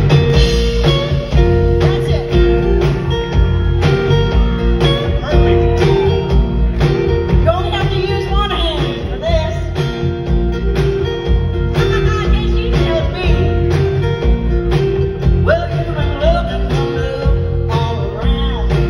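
A live band playing, with drums, upright bass, and acoustic and electric guitars, heard from the audience in a concert hall. The band starts at once at full level.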